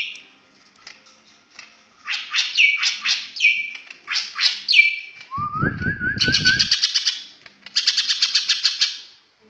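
Songbird calling: a run of sharp, high down-slurred chirps, then a short rising warble, then two long rapid trills of about a dozen notes a second. A low rumble sounds briefly under the warble around the middle.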